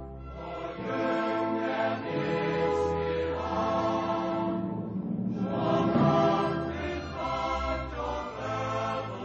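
Choral music: a choir singing long held notes that change about once a second over a low sustained accompaniment.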